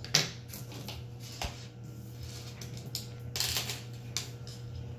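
Light handling noises of felt-tip markers, paper and a small plastic dish on a wooden table: a few sharp clicks and taps, the loudest just after the start, and a brief rustle about three and a half seconds in.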